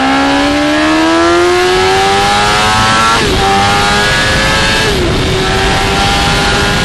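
Sport motorcycle engine heard from on board, revving higher under hard acceleration and then upshifting twice, about three seconds in and again about five seconds in, before running steadily at high revs, with wind noise on the microphone.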